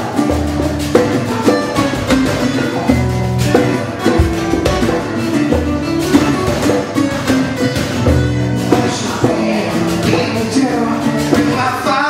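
Two acoustic guitars playing a song live together, strummed chords and picked notes in a steady rhythm.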